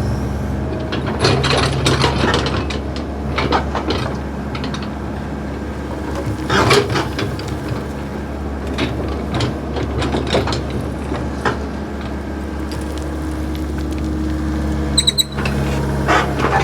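Backhoe's diesel engine running steadily, with scattered knocks and clanks throughout, and a brief high squeak about fifteen seconds in.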